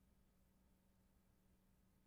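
Near silence: faint steady low hum under a light hiss.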